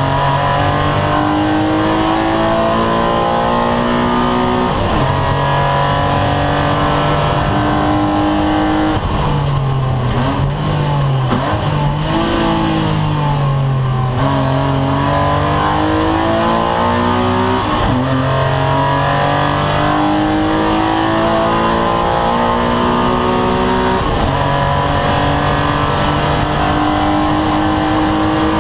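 Two-litre BMW race car's engine heard from inside the cabin at racing speed, revs climbing steadily and dropping suddenly at each gear change every few seconds. In the middle the revs fall and rise several times in quick succession before it pulls up through the gears again.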